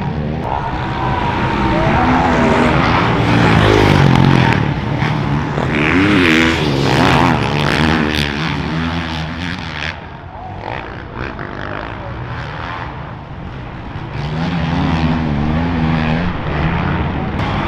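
Motocross bike engines revving hard, their pitch climbing and dropping as the riders work the throttle and shift. The sound eases off for a few seconds partway through, then builds again.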